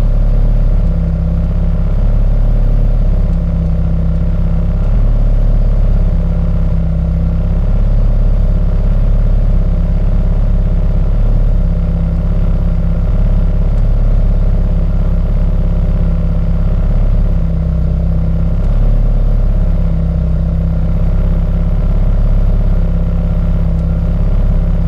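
Turbocharged Integra engine idling steadily, with a slight regular rise and fall about every two seconds.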